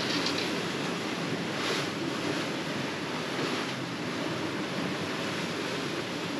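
Wind and sea rushing past a catamaran under sail in a strong breeze: a steady rushing noise, with the water hissing up louder twice, and wind buffeting the microphone.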